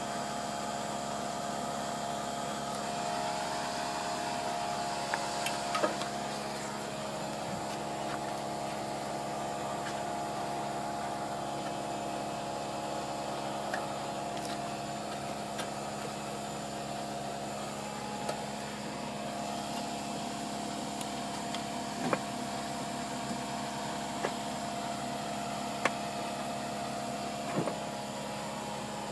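A steady mechanical hum with several held pitches, from an unseen machine running in the workshop, with about half a dozen sharp, light clicks and taps scattered through it as parts and tools are handled.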